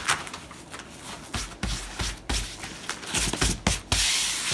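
Hands pressing and smoothing hook-and-loop (Velcro) strips onto a foam crash pad's fabric cover: a run of short rubbing strokes and soft thumps, with a longer rasping hiss near the end.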